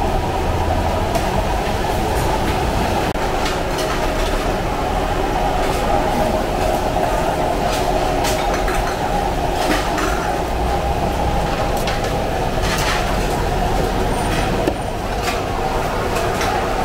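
Steady, dense kitchen din with scattered short knocks and clicks, some of them a cleaver cutting a poached whole chicken on a plastic chopping board.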